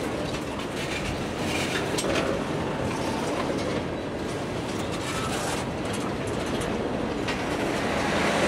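Tank cars of a freight train rolling past: a steady rumble of steel wheels on rail, broken by irregular clicks and knocks as the wheel trucks go by.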